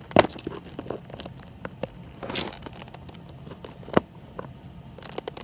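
Clicks, creaks and crackling from a plastic car-door tweeter casing as the old blown tweeter inside is twisted to work it loose, with a sharp knock about a quarter second in and another about four seconds in.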